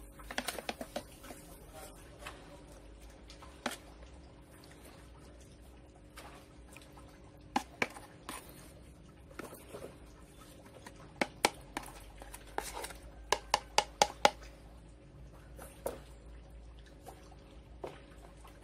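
Plastic ladle scooping wet, reused potting medium out of a fabric mesh bag and into a square plastic pot. Scattered clicks and taps, several in quick runs, with the soft patter of wet soil dropping.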